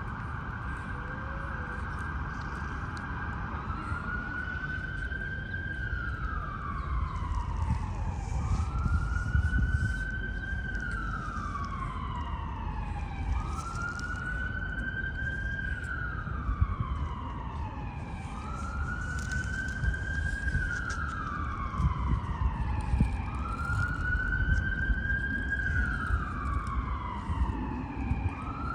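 Emergency vehicle siren in a wail pattern: a held high tone for the first few seconds, then a pitch that sweeps up and slowly falls again, repeating about every five seconds, over a steady low rumble.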